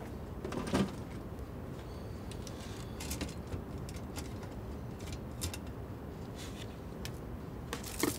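Plastic pens and highlighters clicking and rattling as they are handled and set into holders in a display case: a few scattered sharp clicks over a low steady room hum.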